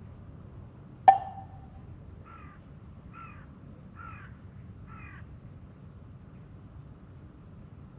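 A single sharp knock with a brief ringing tail about a second in, then a crow cawing four times, about a second apart, over a steady low hiss of background noise.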